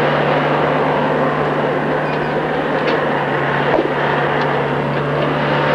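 Feller-buncher's diesel engine running steadily under load, with a few faint sharp clicks from the machine about halfway through.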